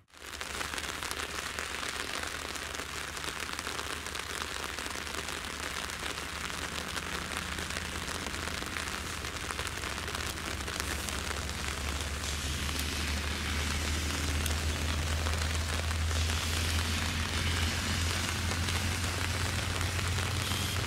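Steady rain falling, an even hiss, with a low rumble underneath that grows slowly louder over the second half.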